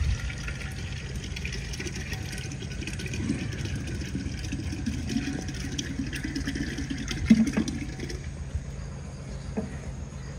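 Water running steadily, stopping about eight seconds in, with a single sharp knock shortly before it stops.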